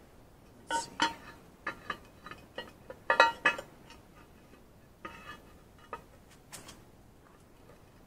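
Metal parts and tools clinking and tapping against each other, about ten scattered hits. Some ring briefly, and the loudest cluster comes a little after three seconds in.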